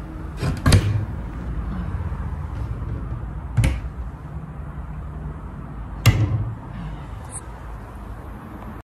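Cabinet doors snapping shut on magnetic catches, three sharp clacks: about a second in, at three and a half seconds, and at six seconds.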